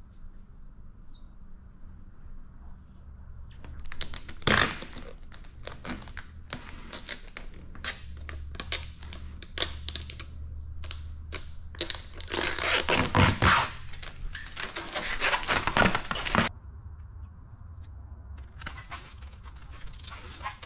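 Clear plastic paint protection film crackling and peeling as its tacked edge is pulled free and handled by hand. It comes in bursts of sharp ticks, thickens into a loud continuous crackle for a few seconds near the end, and cuts off suddenly.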